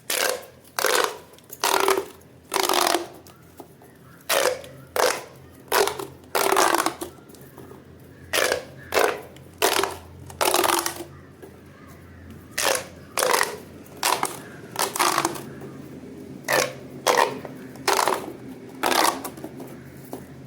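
Crunchy pop toys being crushed one after another: about twenty short crackling crunches, each about half a second long, coming at an uneven pace of roughly one a second.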